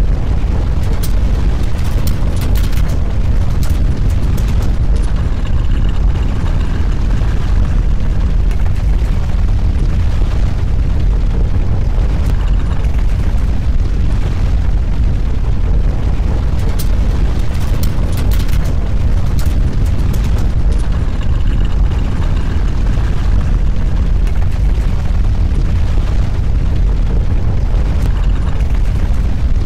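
Loud, steady low rumbling noise with scattered clicks and rattles, during the earthquake's strong shaking.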